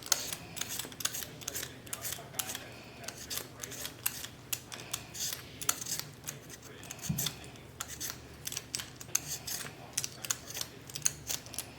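Rapid, irregular light clicks and taps of small hard objects being handled, with one short low thud about seven seconds in.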